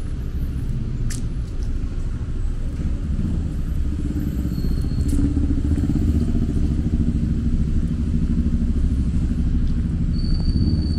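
Low rumble of street traffic, growing louder from about four seconds in as a vehicle passes. A thin, high steady whine sets in near the end.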